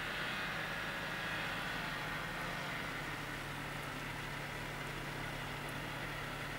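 Snowmobile engine running at low, steady revs, a constant engine note with a hiss above it.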